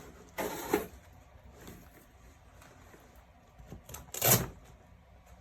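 Handling noises from a portable toilet chair being folded up: a short rattle ending in a sharp click about half a second in, and a louder clack about four seconds in.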